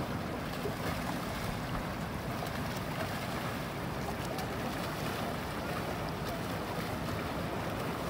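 Steady wash of open sea water with wind on the microphone and faint scattered splashes.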